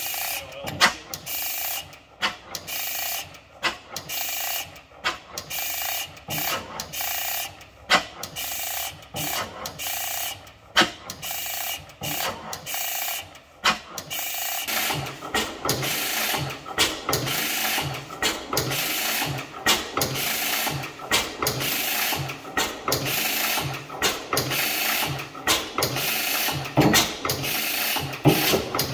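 A 15 hp Fairbanks-Morse Type N stationary engine running with a slow, even beat of clicks and thumps from its firing and valve gear. About halfway through, the beat gets heavier and a little louder.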